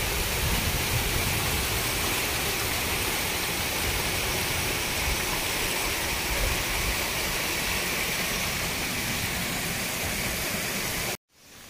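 Waterfall: a steady rush of falling water, with a heavy low rumble, that cuts off suddenly near the end.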